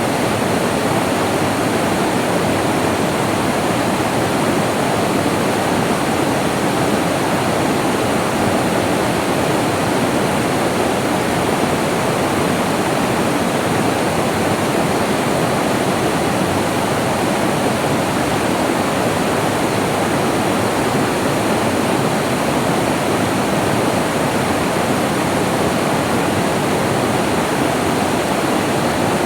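Flowing water in a rainforest stream, a steady rushing and splashing that does not change.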